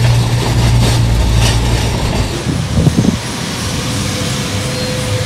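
Steady low rumble of a moving vehicle, road and engine noise as heard from inside, strongest in the first two seconds. A brief voice is heard about three seconds in.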